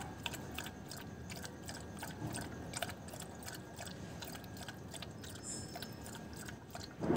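Dog lapping milk from a bowl: a run of small, irregular wet clicks.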